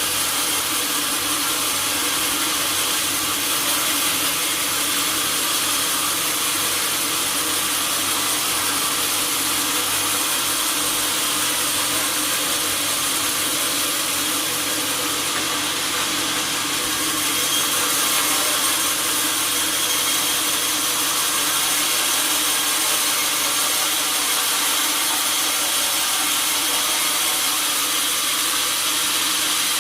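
Sawmill saw cutting through a teak log, running steadily and unbroken, with most of its sound high-pitched.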